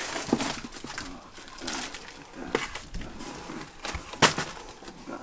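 Cardboard shipping box being opened and rummaged through: irregular rustling and scraping of cardboard and packing, with one sharp crack about four seconds in.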